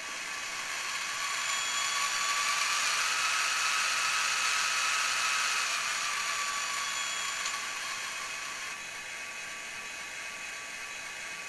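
Model locomotive's Digitrax SDH164D sound decoder, loaded with the SD40-2 sound file, playing the diesel dynamic brake sound through its small speaker. A hiss with a faint whine swells up over the first few seconds, holds, then fades away by about eight seconds in.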